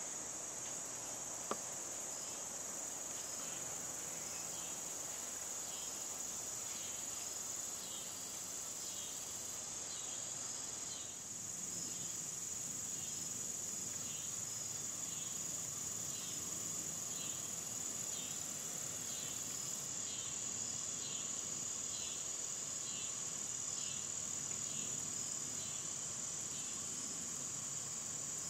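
Steady, high-pitched chorus of insects such as crickets, with a fainter chirping repeating over it. There is one sharp click about a second and a half in.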